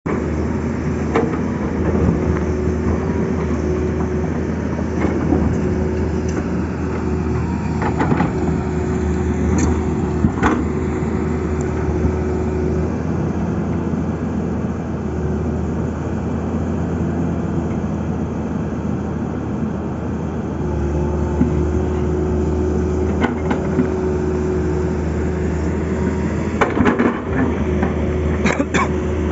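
Tata Hitachi excavator's diesel engine running steadily, its note easing off for several seconds mid-way and then picking up again, with occasional short knocks and clanks.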